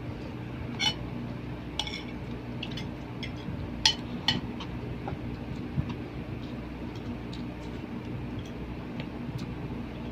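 Spoons and forks clinking against plates and bowls while eating: scattered short sharp clinks, the loudest about four seconds in, over a steady low hum.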